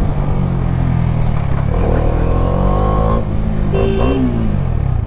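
Bajaj Dominar 400's single-cylinder engine running while riding, its pitch rising as it accelerates about two seconds in. A short vehicle horn beep comes near the end.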